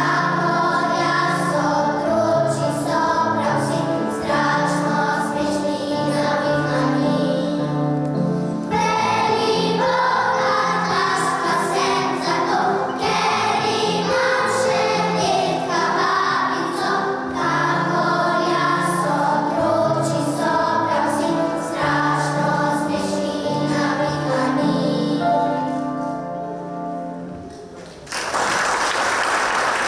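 Young children singing a song together as a choir, with accompaniment; the song dies away near the end and applause breaks out.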